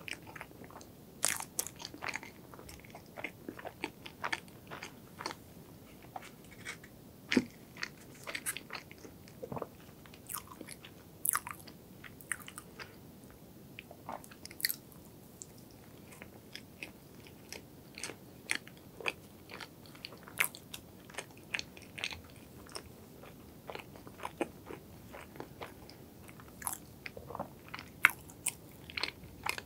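Close-up chewing and mouth sounds of someone eating soft strawberry cake and cream: many small, irregular wet clicks and smacks.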